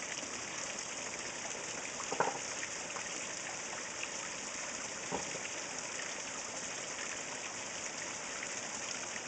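Water from a pond pump splashing steadily over the rocks of a newly built waterfall into the pond, the flow still weak. A couple of faint knocks come about two and five seconds in.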